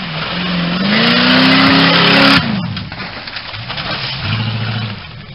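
Off-road buggy's engine revving hard with wheels spinning and mud spraying as it climbs out of a muddy gully; the revs climb and then cut off sharply about two and a half seconds in. After that an engine runs at lower, steadier revs.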